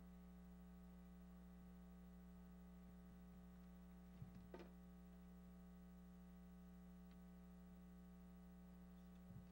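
Near silence: a faint steady electrical mains hum, with a few faint ticks about four seconds in and again near the end.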